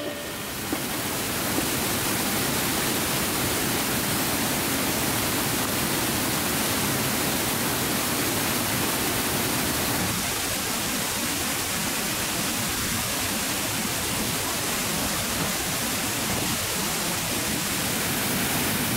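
Steady rush of a waterfall pouring into a pool, an even wash of falling water whose texture shifts slightly about halfway through.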